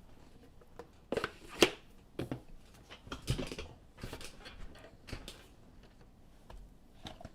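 Trading cards and their packaging being handled: scattered light rustles and clicks, with one sharp tap about a second and a half in.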